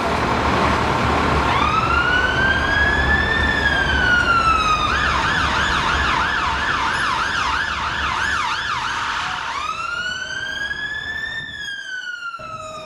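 Emergency vehicle siren: a slow rising-and-falling wail, then a rapid warble for about four seconds, then another slow wail, over steady low street traffic noise.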